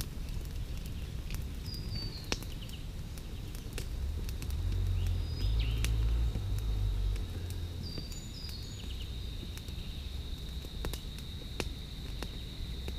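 Small twig-and-kindling campfire crackling, with scattered sharp pops throughout. Birds chirp at times, a low rumble comes through around the middle, and a steady high insect trill sets in about eight seconds in.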